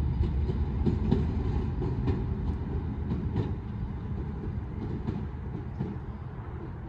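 A diesel locomotive running light along the track, its wheels clicking irregularly over rail joints over a low rumble that fades steadily as it moves away.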